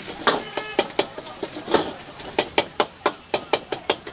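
Metal ladle and spatula knocking and scraping against a wok as greens are stir-fried. Sharp clanks come irregularly at first, then in a quick run of about five a second in the second half.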